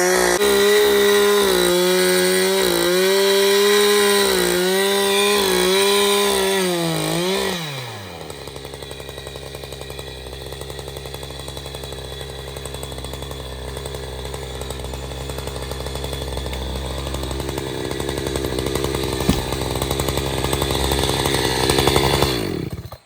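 Chainsaw cutting through wood, its engine held at high revs with the pitch wavering under load. About eight seconds in, the pitch drops and it runs lower and steadier, then stops abruptly near the end.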